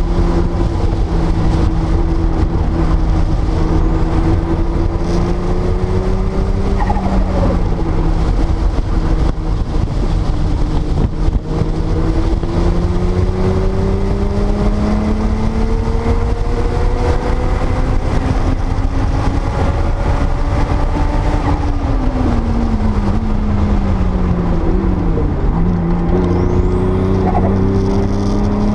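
Porsche 930 Turbo's air-cooled turbocharged flat-six pulling hard through the gears on track: long slow climbs in pitch, a drop about a quarter of the way in, then a longer fall with a sharp dip a little past the three-quarter mark before it climbs again. A heavy low rumble of wind and road noise runs underneath.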